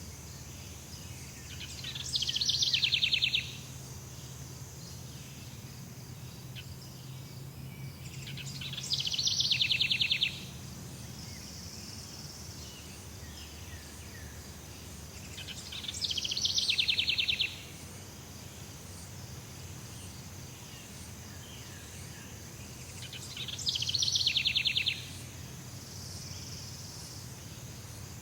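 Jungle ambience: a loud, fast-pulsed trilling call from an insect or bird repeats four times, about every seven seconds. Each call lasts about a second and a half and swells as it goes. Under it run a steady high insect drone and a low hum.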